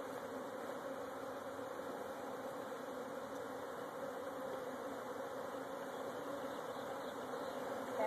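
Steady buzzing of a large mass of honeybees flying around an open hive and the box they are being knocked out of, a dense, even hum that doesn't change.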